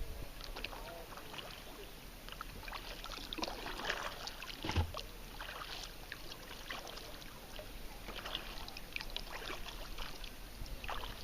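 Kayak paddle strokes in river water: irregular splashing and dripping as the blades dip and lift, with a single louder thump about five seconds in.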